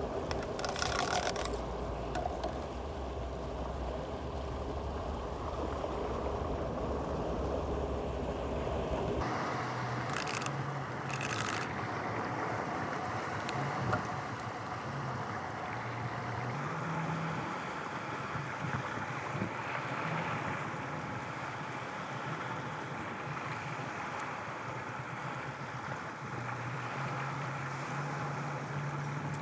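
Steady outdoor noise of wind and water, with a low wind rumble on the microphone that stops abruptly about nine seconds in. A few brief scratchy sounds come through near the start and around ten seconds in.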